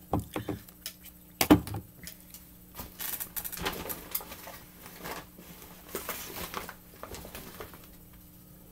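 Handling sounds: a few knocks as items are set down, one louder thump about a second and a half in, then the crinkling rustle of a plastic shopping bag being rummaged through.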